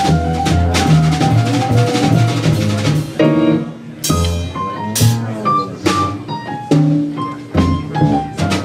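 Jazz piano trio playing live: acoustic grand piano over an upright double bass line, with drum kit and cymbals. Sharp drum and cymbal hits punctuate the second half.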